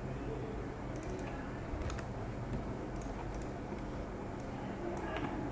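A few faint, scattered computer mouse and keyboard clicks over a steady low hum and hiss from the recording.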